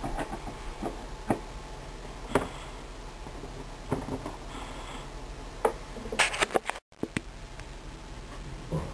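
Handling noise as plastic action figures are moved by hand close to the microphone: scattered light clicks and taps over quiet room tone, with a quick flurry of them a little past the middle.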